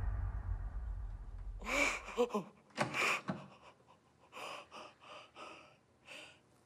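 A woman crying: a string of short, sharp gasping sobs and breaths. A low music bed fades out over the first two seconds.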